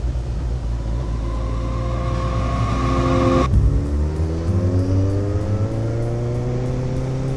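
Kawasaki Ninja ZX-14R engine accelerating hard, its pitch climbing, then an upshift about three and a half seconds in drops the pitch sharply before it climbs again under a steady wind rush.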